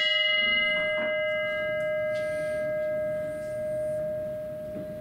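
A single struck memorial bell ringing out after a name is read: one steady tone slowly fading, with higher overtones that die away within the first two seconds.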